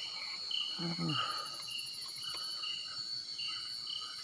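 Night insects calling: crickets repeating short chirps over a steady high-pitched insect drone.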